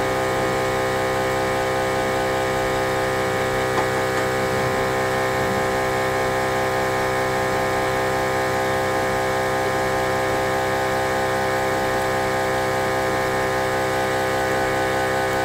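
Steady, even whir of the OM-518Plus LCD separator machine's built-in pump motor, running without change.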